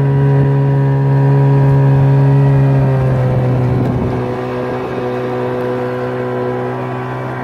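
A river boat's motor running steadily under way. About three to four seconds in, its note dips slightly and it gets a little quieter.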